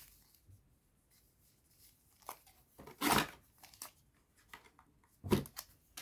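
Booster packs being handled: a few short rustles and taps of foil wrappers and card, the loudest about three seconds in and another near the end.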